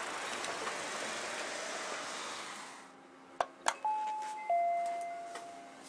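Steady city street noise gives way to two clicks of the call button on a Panasonic video-intercom door station. Then comes its two-tone doorbell chime: a short higher note, then a lower note held for about a second.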